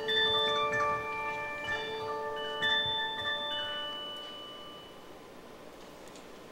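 Bell-like chiming music: a handful of struck notes ringing and overlapping, then dying away about four to five seconds in, leaving faint room tone.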